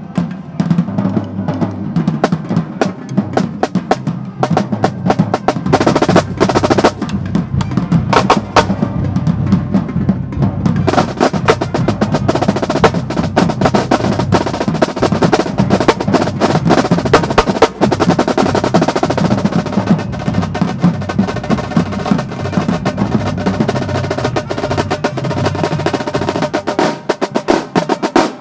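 Marching band drumline of snare, tenor and bass drums playing a fast, dense cadence. The sound grows fuller and brighter about eleven seconds in.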